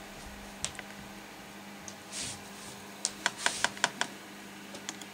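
Light sharp clicks and taps, most likely tweezers clicking against a container while catching a cockroach: a quick run of about six clicks past the middle, a brief rustle before it, and a low steady hum underneath.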